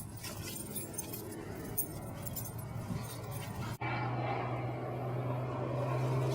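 Faint rustling with scattered light clicks, then after an abrupt cut about four seconds in, a steady low engine drone.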